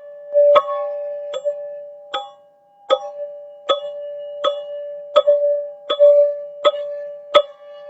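Teal ZenTube struck in a steady rhythm, about one strike every three-quarters of a second. Each strike rings on at mostly one pitch, with a fainter second tone above it.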